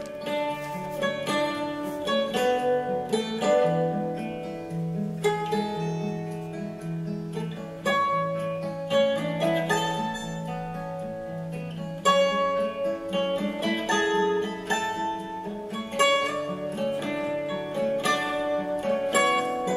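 Background instrumental music: a plucked-string melody over a low bass line.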